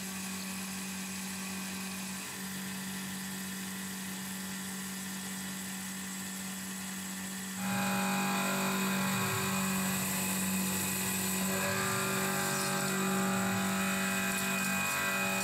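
Tormach PCNC 1100 CNC milling machine cutting titanium with flood coolant: the spindle runs with a steady whine. The sound gets louder and fuller about seven and a half seconds in.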